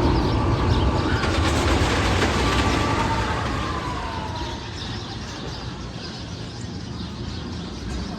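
Roller coaster train running past with a loud rumble and a whine that falls in pitch, fading away over about five seconds.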